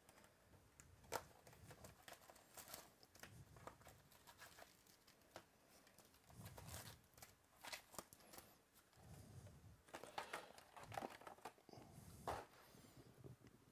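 Faint rustling and crinkling of wrapped trading-card packs and a cardboard box being opened, as the packs are lifted out and set down in a stack, with a few sharp clicks and taps.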